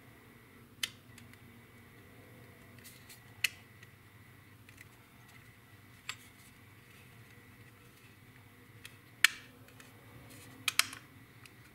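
Hard plastic model-kit parts clicking and knocking as the fuselage halves are fitted and pressed together around the cockpit: about six sharp clicks, the loudest about nine seconds in and two close together near the end, over a faint steady hum.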